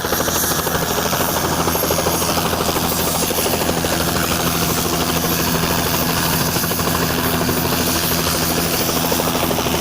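Helicopter running close by: a steady, rapid rotor chop over a continuous engine tone.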